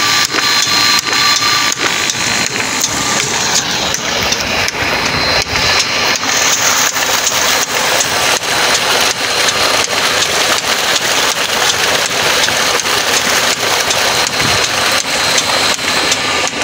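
Water gushing steadily from a solar-powered tube well pump's outlet: a continuous loud splashing rush, with a thin steady high tone running through it.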